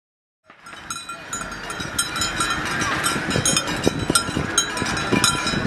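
Many metal cowbells clanging together in a dense, unrhythmic jangle, starting about half a second in.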